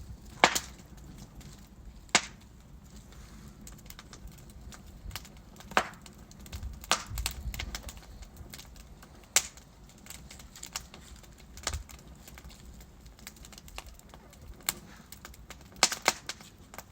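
Wood fire burning in a fireplace: logs crackling and popping with sharp, irregular snaps over a soft low rumble of flame.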